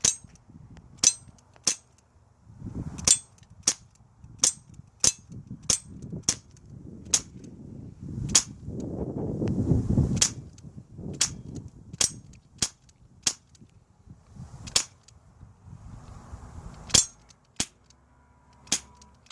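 BB gun firing again and again: about twenty sharp cracks, roughly one a second at uneven spacing, until it runs out of BBs.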